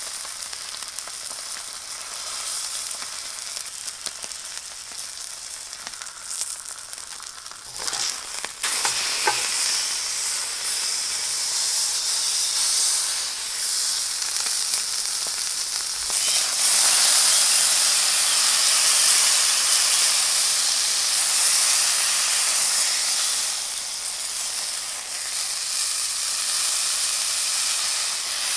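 Steak sizzling and frying in a hot cast-iron skillet, a steady hiss that grows louder about halfway through. A few light knocks come about eight to nine seconds in.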